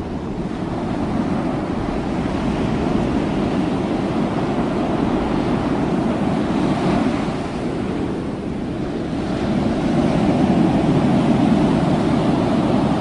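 Ocean surf breaking and rushing, with wind noise on the microphone; it swells louder near the end.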